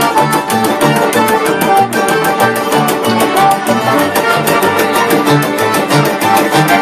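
Live band playing loud, led by electric guitar, over a steadily pulsing bass line and a fast, even beat, with no singing.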